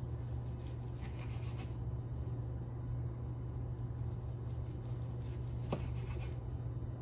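Freshly sharpened kitchen knife slicing through a sushi roll on a wooden cutting board: soft scratchy cutting strokes, a few about a second in and again near six seconds, over a steady low hum.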